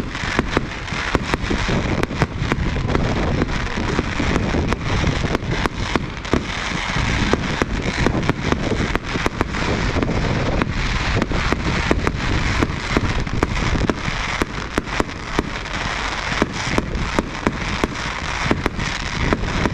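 Aerial fireworks display: shells bursting in a rapid, irregular barrage of sharp bangs over a continuous crackle that goes on without a break.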